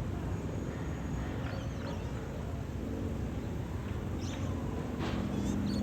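Steady low drone of a distant aircraft engine circling overhead, growing slightly louder near the end, with a few short bird chirps about four and five seconds in.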